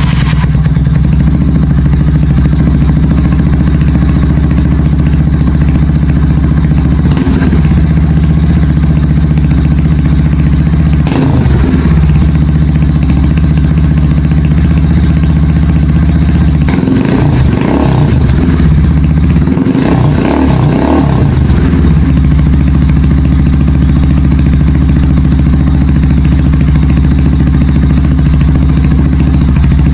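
GPR 250 motorcycle engine running through an Akrapovič-style slip-on muffler with its silencer insert (dB killer) removed, idling loud and steady with a few brief throttle blips a little past halfway.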